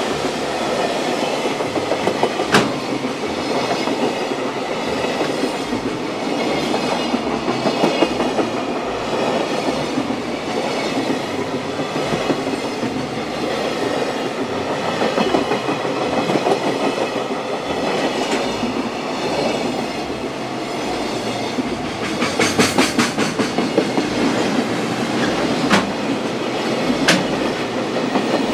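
Freight train's container flatcars rolling past close by: a steady rumble of wheels on rail with clickety-clack over the rail joints, and a quick run of clacks about 22 seconds in.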